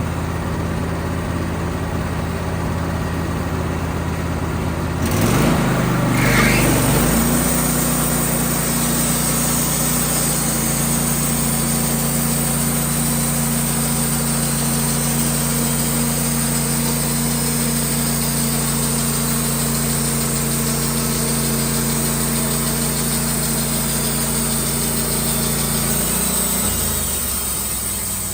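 Engine running steadily, then revved up about five seconds in with a brief rising whine. It holds at the higher speed and drops back near the end.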